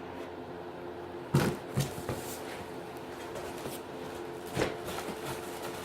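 Cardboard packaging being handled while a boxed amplifier is worked out of it: a few sharp knocks and thumps, the loudest about a second and a half in and another near the end, with rustling between.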